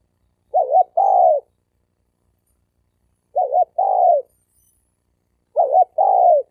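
Spotted dove cooing three times, roughly every two and a half seconds. Each call is a quick double note followed by a longer coo that falls at the end. It is a wild male's challenge call.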